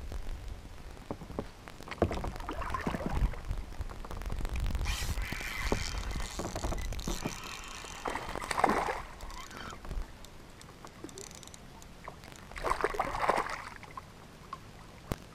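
Water sloshing and splashing around a fishing kayak in several separate spells, with a few knocks.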